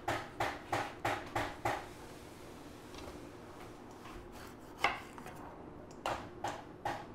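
A chef's knife cutting a fresh lemon in half on a wooden cutting board, with one sharp knock as the blade meets the board about five seconds in. A regular soft tapping, about two and a half strokes a second, is heard at the start and again near the end.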